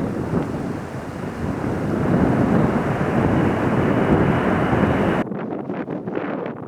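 Strong gusty wind buffeting the microphone with a heavy rumbling rush. About five seconds in the sound changes abruptly to choppier, thinner wind gusts.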